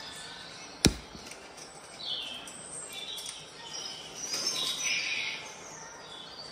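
Birds chirping and calling, played from a CatTV video through an Echo Show's speaker, with one sharp click just under a second in.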